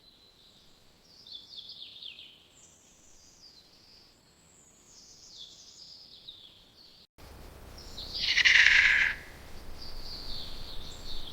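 Birds chirping in thin, high notes. The sound breaks off about seven seconds in, and a louder call of about a second follows, with the high chirping going on after it.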